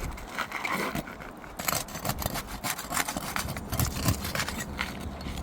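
Irregular scraping and clicking of hand tools and hands working against brittle asphalt 3-tab roof shingles.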